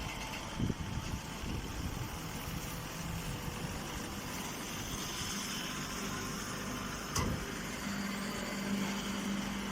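Straw baling machine running steadily, with a sharp knock just under a second in and another about seven seconds in, and a low hum that grows stronger near the end.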